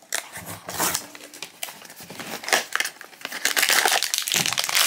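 Foil inner bag of a blind-box figure crinkling and crackling in the hands as it is handled and opened, the crinkling thickest in the second half.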